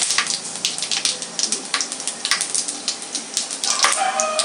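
Whole spices (fennel seeds, cinnamon, cloves, cardamom, bay leaf) sizzling in hot oil in an aluminium kadai, with sharp crackles and pops throughout as they fry and release their aroma. A perforated ladle stirs them, and there is a brief squeaky scrape near the end.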